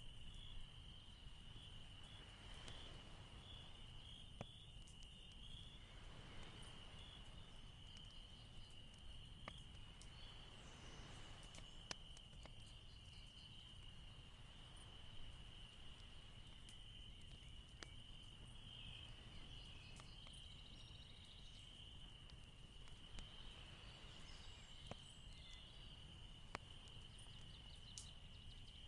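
Near silence: a faint, steady high-pitched chirring with a few faint clicks scattered through it.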